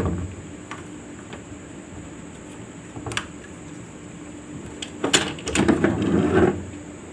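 Clicks and knocks of tools and parts being handled while an electric fan motor's wiring is taken apart, with a louder stretch of clattering about five seconds in.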